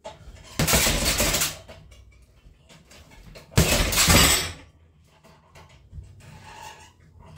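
Two quick flurries of punches into a hanging heavy bag, each lasting about a second, with clattering from the bag's chain and steel stand; the first comes a little after the start, the second about halfway through.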